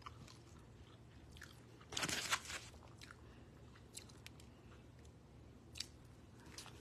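A person biting into and chewing a sandwich close to the microphone: quiet mouth sounds, with a louder bite about two seconds in.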